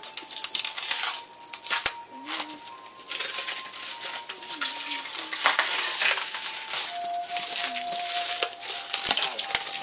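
Clear plastic shrink wrap crinkling and tearing as it is pulled off a cardboard box by hand.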